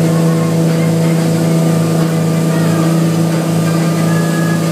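Speedboat engine running steadily at towing speed, an unchanging drone, over a steady rush of water from the boat's wake.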